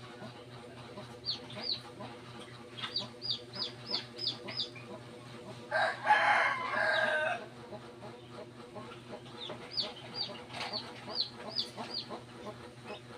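Native chicken chicks peeping in quick runs of short, high, falling peeps. Near the middle a rooster crows once for about a second and a half, the loudest sound.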